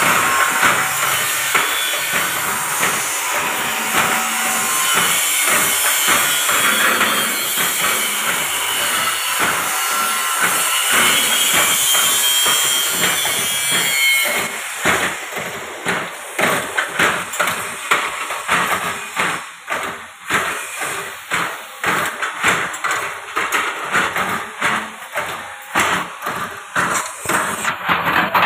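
Automatic rebar ring (stirrup) bending machine running under its electric motor: a dense clattering hiss, then quick, evenly repeated knocks from about halfway through.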